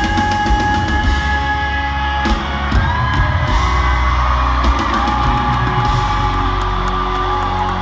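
Live pop-rock band playing in an arena, heard from among the audience: an amplified male lead vocal holds two long notes over the band, with the crowd screaming and cheering.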